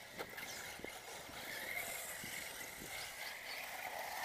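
Electric off-road RC buggies racing: a steady high-pitched electric motor and gear whine, with a few scattered clicks and knocks.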